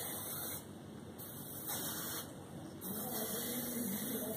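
Aerosol can of red dye penetrant spraying in three bursts of hiss: the first ends about half a second in, the second lasts about a second, and the third starts near three seconds in. The penetrant is being applied to metal test pieces, the penetrant stage of a dye penetrant crack test.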